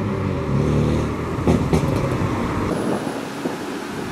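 Cars driving off, a steady low rumble of engines and traffic, with two sharp clicks about a second and a half in.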